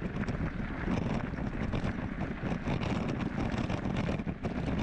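Wind buffeting the microphone: a steady, loud rushing noise with rapid fluttering.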